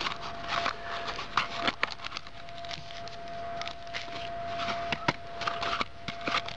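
Rustling and irregular clicks of a small cardboard box and its plastic packet being handled and opened by hand, with a faint steady tone underneath.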